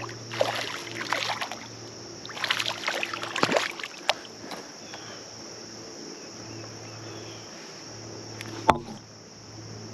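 Water splashing in two irregular bursts as a hooked smallmouth bass thrashes at the surface, followed by a sharp knock near the end.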